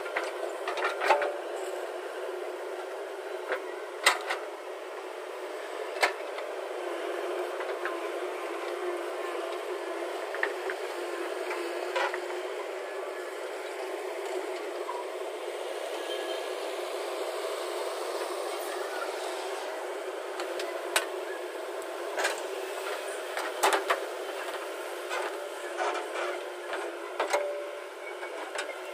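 JCB 3DX backhoe loader's diesel engine running steadily, with sharp knocks now and then.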